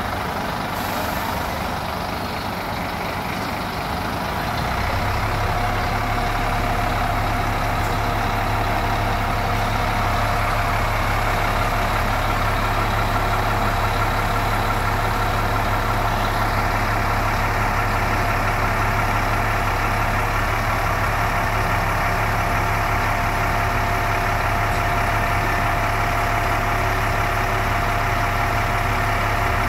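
Scania K410IB coach's rear-mounted diesel engine idling steadily. Its hum gets louder about five seconds in, with a steady whine over the engine note.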